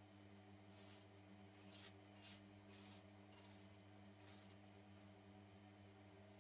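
Faint gritty rasps of a silicone spatula stirring dry ammonium sulfamate crystals in a glass dish: a string of short strokes that stops after about four and a half seconds. A steady low hum runs underneath.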